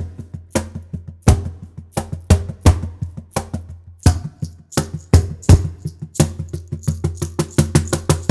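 Ortega wood finger shaker with stainless steel beads, shaken on the beat by a playing hand, giving a run of sharp percussive shakes that come faster near the end, over steady low sustained notes from the instrument being played.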